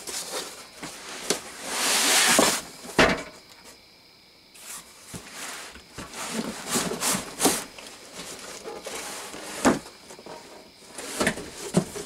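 Cardboard box being handled: inserts and flaps slide, scrape and knock as the box is folded shut. There is a long scraping slide about two seconds in and a few sharp knocks, the loudest near the start and about ten seconds in.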